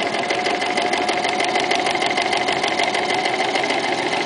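Toyota FSG325 sewing machine with a walking foot attached, stitching a straight seam at steady speed: a fast, even ticking of the needle strokes over the steady whine of its motor.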